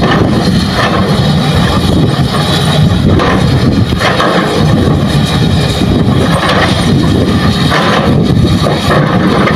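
Hitachi hydraulic excavator running steadily as it digs earth: a loud, continuous low engine rumble.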